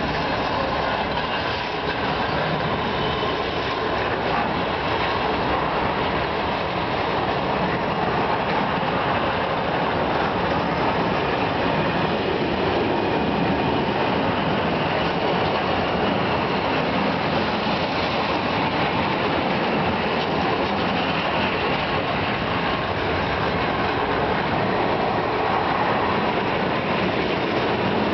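Freight train of open-top coal wagons rolling past close by: a steady, loud noise of steel wheels running on the rails.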